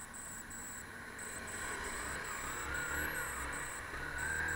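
Motorcycle engine running low while stopped, then pulling away, its note rising and growing louder over the second half.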